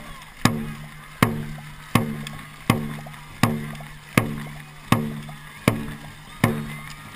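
Dragon boat drum beaten steadily at racing pace, about one beat every three-quarters of a second, each beat ringing low. Water splashes from the paddles between the beats.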